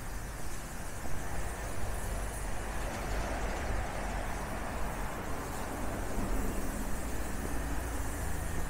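Steady road-traffic noise with a low rumble, swelling slightly about halfway through as a vehicle passes.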